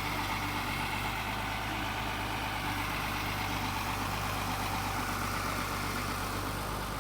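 Tata Hitachi 200-class excavator's diesel engine running steadily with an even, unchanging hum.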